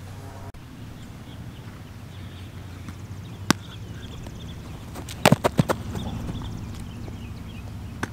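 A few sharp clicks or taps over a steady low background rumble: one about three and a half seconds in, a quick run of four or five around five seconds in, and a last one near the end.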